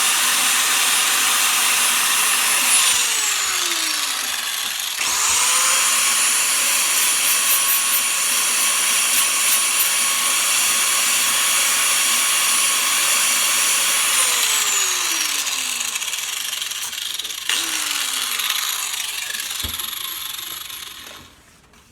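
Angle grinder with a flap disc grinding and trimming the edge of hardened fibreglass, its high motor whine over a rasping grinding noise. The motor winds down with a falling whine, is spun back up about five seconds in, runs steadily, winds down again, runs briefly once more and stops shortly before the end.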